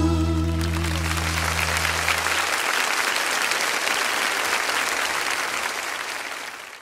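Audience applause at the end of a live song, over the band's last held chord, which dies away in the first couple of seconds; the clapping fades out near the end.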